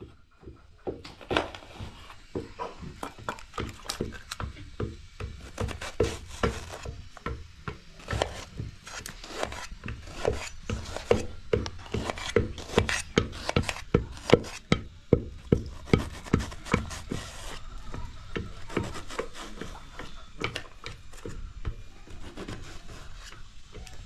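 Wooden pestle pounding in a tall wooden mortar, a steady run of dull knocks about one a second, louder in the middle stretch. Lighter clicks in between from a knife cutting onion on a metal tray.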